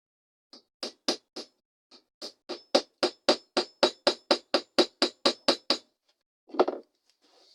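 Small hammer peening the pivot pin of a lockback folding knife against a steel sledgehammer head used as an anvil, to tighten the pin and take out blade play. A few light taps, then a quick steady run of about four ringing metal strikes a second, and one more separate strike near the end.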